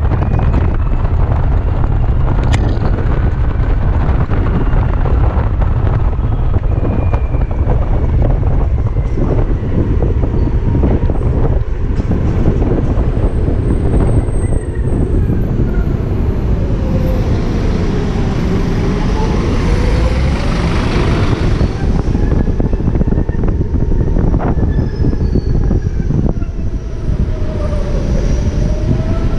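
BMW C-Evolution electric scooter ridden through traffic: steady wind and road rumble on the microphone, with the electric drive's thin whine gliding down and back up in pitch as the scooter slows and picks up speed. A rush of hiss swells for a few seconds past the middle.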